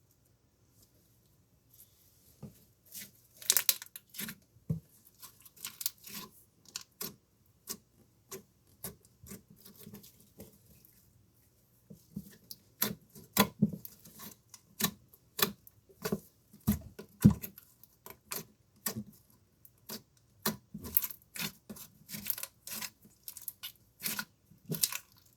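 Slime being squeezed and stretched by hand, giving irregular sharp pops and crackles as trapped air bursts. It starts about two seconds in and gets busier about halfway through.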